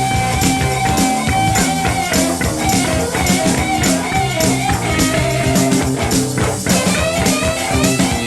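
Recorded rock and roll song in an instrumental break: a bending electric guitar lead over bass and a steady drum beat.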